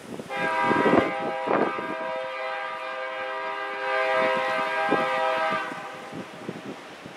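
EMD GP7 diesel locomotive's air horn sounding one long blast of about five seconds, with wind buffeting the microphone.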